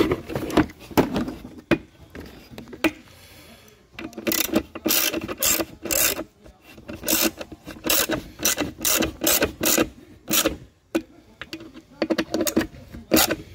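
Steel sockets and tools clinking in a plastic socket-set case. From about four seconds in, a socket ratchet clicks in short repeated strokes, two or three a second, as a Torx bit socket turns a screw on the mass airflow sensor.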